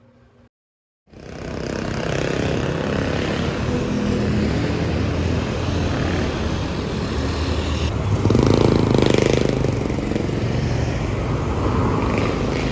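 A motor running loudly and steadily with a low hum. It cuts in after a brief gap of silence and swells a little about two-thirds of the way through.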